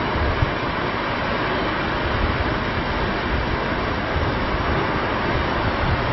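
Wind blowing over the microphone on an open beach: a steady rushing noise with uneven low rumbling buffets, and the sea's surf likely mixed in.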